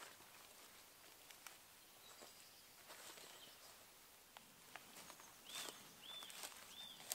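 Faint footsteps rustling through dry forest leaf litter, with a songbird calling near the end: three short arched high notes about half a second apart.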